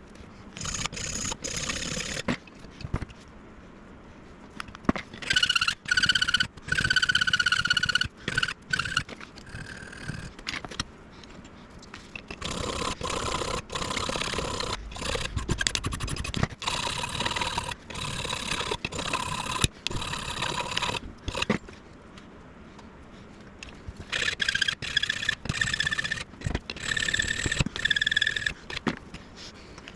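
CNC milling machine cutting brass stock: a pitched cutting squeal comes and goes in stretches of a few seconds as the cutter works the metal, over the steady running of the spindle, with many sharp clicks.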